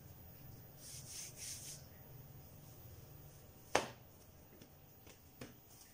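Hands rubbing and patting a block of floured puff pastry dough on a countertop, with soft brushing sounds, then one sharp knock against the counter and a lighter tap near the end.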